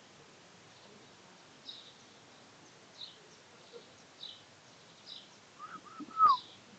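Small songbirds chirping, short high chirps repeating every second or so over faint outdoor background noise. Near the end, a louder cluster of short mid-pitched notes ends in a sharp knock.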